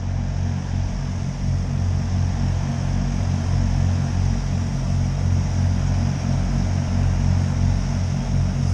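Norfolk and Western Class J steam locomotive moving slowly: a steady low hum with a constant high hiss over it, and no distinct exhaust beats.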